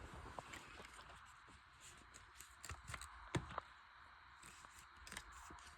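Near silence with a few faint, scattered clicks and taps, clustered around the middle.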